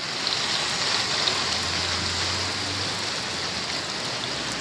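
Steady rain falling on a wet street, an even hiss. A low hum comes in about a second and a half in and fades near the end.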